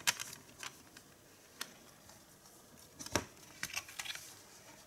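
Scattered clicks and light rustles as a Blu-ray steelbook case and its insert are handled, with the loudest click about three seconds in.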